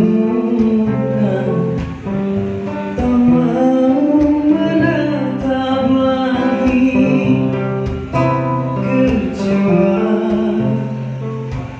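Acoustic guitar accompaniment, strummed and plucked, with a man singing over it in long held notes.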